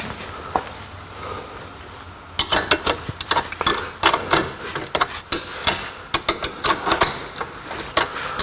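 Ratchet wrench clicking in quick runs of strokes as the bolts on a rear track mounting bracket are tightened, starting about two seconds in.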